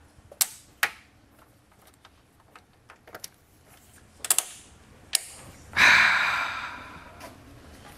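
Aluminium competition radiator being worked into its mounts in the engine bay: a few sharp clicks and knocks, then a louder scrape about six seconds in that fades away over a second or so.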